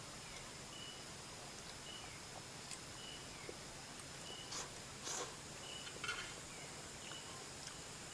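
Night insects: a steady high buzz with a short chirp repeating about once a second. A few brief eating noises, chewing or slurping, come a little past the middle.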